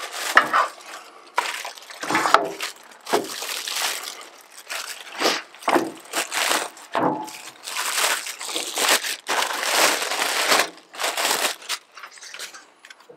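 Clear plastic bag crinkling and rustling in irregular bursts as it is pulled off a new power tool.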